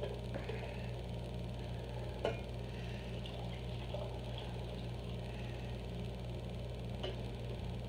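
A steady low electrical hum under faint kitchen room tone, with a few soft clicks and a light knock about two seconds in.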